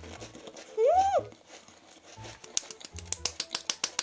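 Hands clapping quickly, a run of sharp claps several a second starting about two and a half seconds in. Before that, about a second in, comes one short squeal of a voice that rises and falls in pitch.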